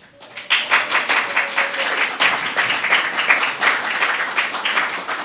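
Audience applauding, a dense patter of many hands that swells in about half a second in.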